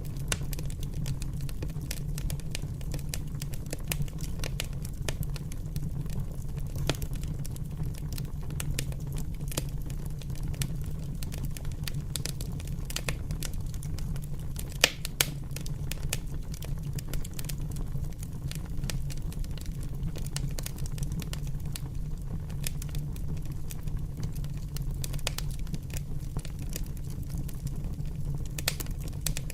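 Wood fire crackling steadily over a low rumble, with irregular sharp pops and one louder pop about halfway through.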